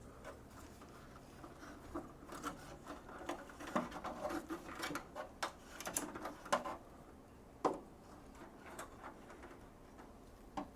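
Faint scattered clicks and rubbing of hands working a fan's cable into place inside an iMac G3, busiest in the middle with one last click near the end.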